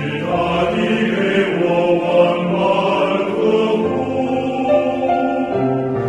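Gentle, calm soundtrack music of long held chords that change slowly, with a choir-like sound.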